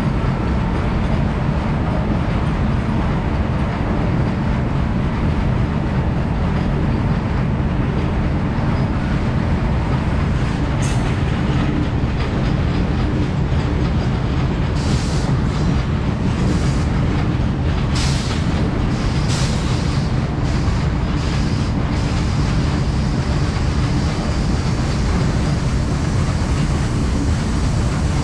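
Freight train rolling past, a steady loud rumble of wagon wheels on the rails. From about halfway through, for several seconds, short high-pitched wheel squeals come and go over it.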